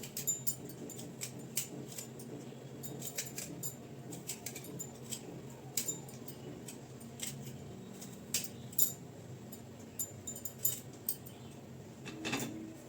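Faint, irregular scrapes and clicks of raw turmeric root being peeled by hand, its thick skin scraped away.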